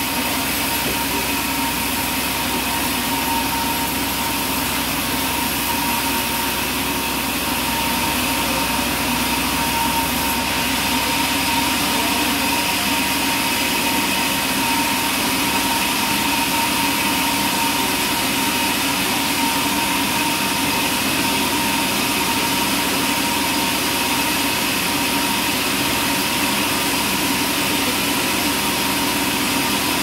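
Large vertical band saw running and cutting through timber: a steady mechanical rushing noise with a high whine held throughout.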